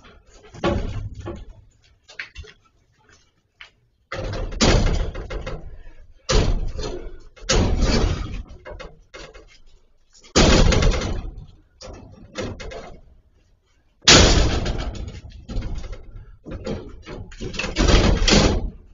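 Heavy blows from a long wooden-handled striking tool hitting something hard: about seven loud bangs at uneven intervals, each trailing off over a second or so.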